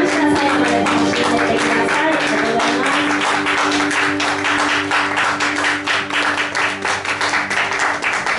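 The song's final chord held out by the backing music while a small audience claps, the clapping thickening in the second half.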